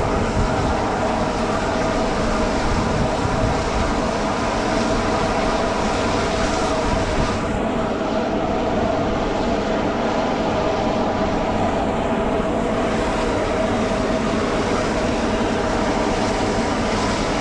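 Aircraft engines running steadily at idle: a constant whine over an even rushing noise, with no change in pitch.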